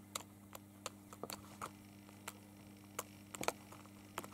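A kitten gnawing a hard plastic ballpoint pen in a pen cup: irregular small sharp clicks of teeth on the celluloid-like pen, a quick cluster of them about three and a half seconds in. A faint steady electrical hum runs underneath.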